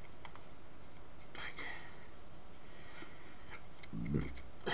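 Quiet handling of a dismantled electric fan's motor parts: a few faint clicks, a short rustle about a second and a half in, and a dull low thump near the end.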